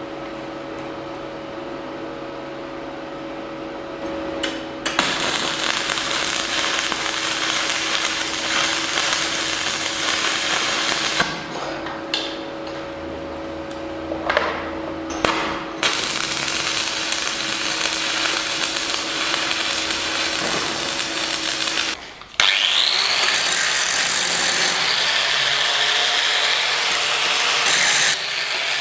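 A power tool running on metal, stopping and restarting several times. Near the end it speeds up with a rising whine and then runs steadily.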